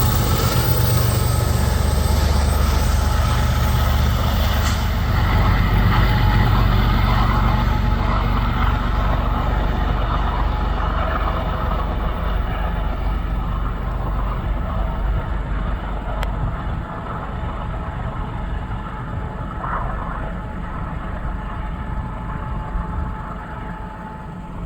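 CN freight train cars rolling past on the track: a steady rumble of wheels on rail whose hiss dies away over the first several seconds, then slowly fading as the train moves off.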